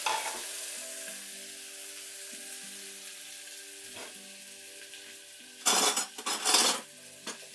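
Chopped onion and whole spices sizzling in hot oil in a pressure cooker, the sizzle fading down, then a spoon scraping and stirring them loudly for about a second near the end.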